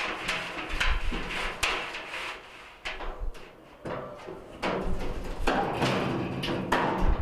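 Metal drum of a Speed Queen commercial dryer being slid and fitted into its sheet-metal cabinet: a series of clunks and knocks, with scraping in the second half.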